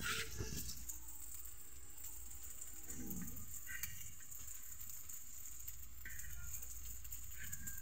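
Steady sizzle of fritters deep-frying in hot oil, with a few sharp knocks in the first half second.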